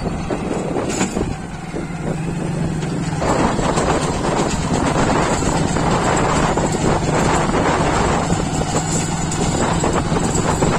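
A small motor vehicle engine running steadily on the move, with wind noise on the microphone; the sound grows a little louder about three seconds in.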